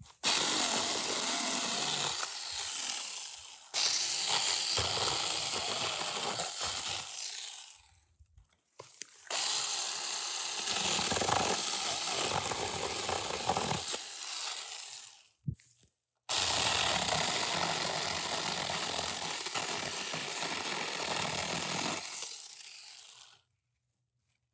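Battery-powered mini chainsaw with a 6-inch bar cutting through a sapling's stem and scrub. It runs in four bursts of a few seconds each, starting abruptly and winding down when the trigger is released.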